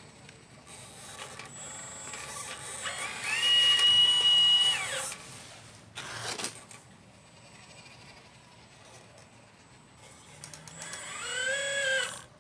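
Motor whine from a 1/12-scale RC Liebherr 954 excavator: twice it rises in pitch and falls back, the first time holding steady for about two seconds, the second a shorter rise and fall near the end. A brief clatter comes about six seconds in.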